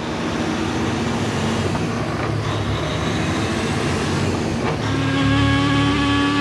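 Heavy semi-truck engine running, heard as a steady rumble. About five seconds in, a steadier, higher engine note with a held pitch comes in over it.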